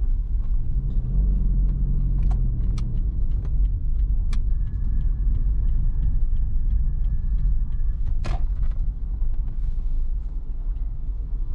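Car interior sound while driving slowly: a steady low engine and road rumble, with an engine hum early on and a few sharp clicks and knocks from the cabin, the loudest about eight seconds in.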